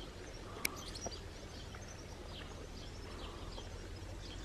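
Small birds chirping faintly and sparsely over a low, steady background rumble, with one sharp click about two thirds of a second in.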